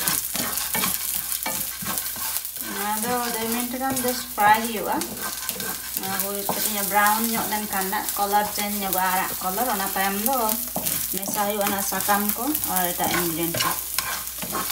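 Lentils, chopped onion and dried red chilies sizzling in hot oil in a nonstick frying pan, stirred with a wooden spatula as the dal roasts. From about three seconds in, a wavering pitched sound runs over the sizzle.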